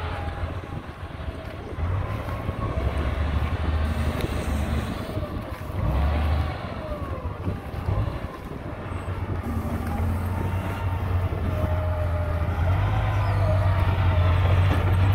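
Motor grader's diesel engine running steadily with a deep drone, growing louder over the last few seconds as the grader comes up close.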